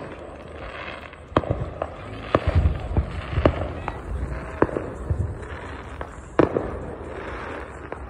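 Fireworks exploding: an irregular run of sharp bangs and pops, about a dozen, the loudest about six seconds in.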